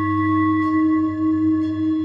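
Background music of long, held ringing tones layered at several pitches, with a new note coming in near the end, much like a singing bowl.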